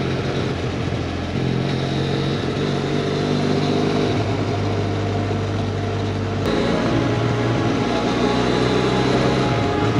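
Benelli motorcycle engine running under way, heard from the rider's position with wind rush. Its note holds steady and steps to a new pitch a few times, with a click and a drop in pitch about six and a half seconds in.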